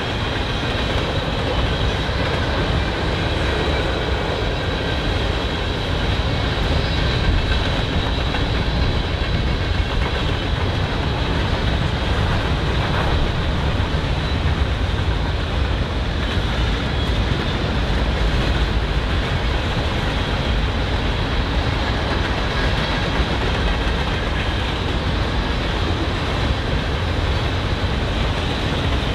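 Train cars rolling past on the rails: a steady rumble and rattle of wheels on track, with faint thin squeal tones over it.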